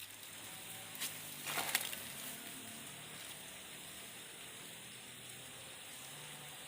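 Steady hiss of flowing stream water, with a short click about a second in and a brief louder burst of noise just after.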